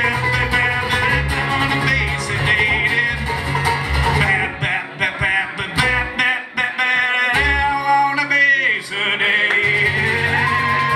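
Live acoustic band in a bluegrass/country style: strummed acoustic guitar, rapidly picked banjo and acoustic bass guitar, with a male voice singing. The bass notes drop out for a few seconds in the middle, leaving guitar and banjo.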